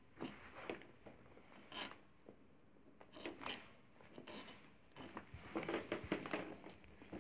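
Faint, irregular scuffling and scraping in short clusters, busiest in the second half: a young puppy moving about and scrabbling on a rag rug and parquet floor.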